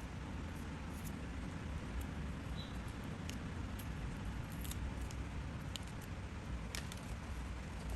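Light crafting noises: scattered small clicks and taps of paper and tools being handled, over a steady low background hum.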